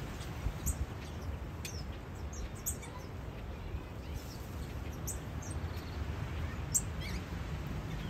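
Small aviary birds giving scattered short, high chirps over a steady low background rumble.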